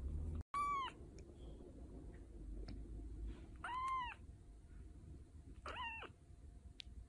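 A very young kitten mewing three times, a few seconds apart. Each mew is short and high-pitched, rising and then falling in pitch.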